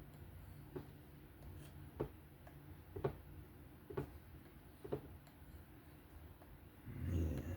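Knife blade being stroked on a hone, a light tick about once a second, then a short louder rustle near the end.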